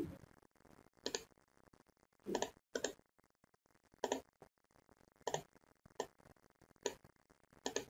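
Faint computer mouse clicks, about eight at irregular intervals, each a quick press-and-release.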